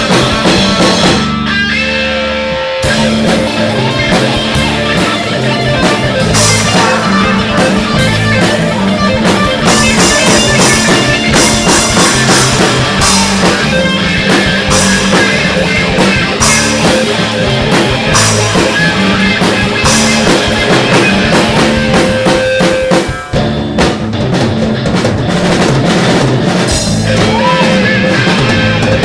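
Live rock-blues band playing an instrumental passage: guitar over a drum kit, with no singing.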